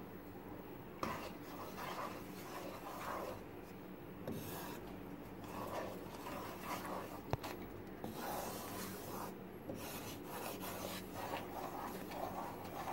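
A spatula scraping and stirring a thick semolina and coconut paste around a non-stick frying pan in repeated strokes, about one or two a second, with one sharp tap against the pan about seven seconds in. The paste is being stirred without a break over low heat so that it doesn't clump.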